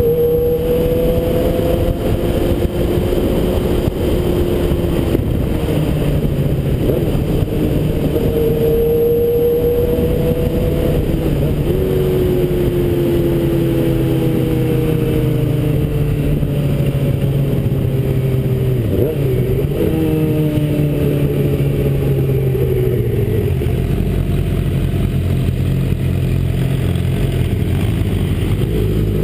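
Suzuki GSX-R 600's inline-four engine running under load, its pitch rising and falling with throttle and gear changes, over a steady rush of wind and road noise on the bike-mounted camera's microphone. Near the end the engine note drops away as the bike slows.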